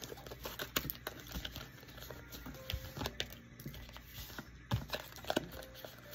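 Tarot cards being gathered up and handled: a run of irregular light clicks and taps, with two sharper knocks near the end.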